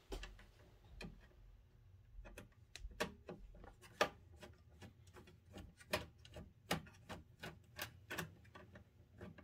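Screwdriver turning a small screw out of a CD player's chassis: a run of faint, irregular clicks and ticks as the tip grips and the screw turns.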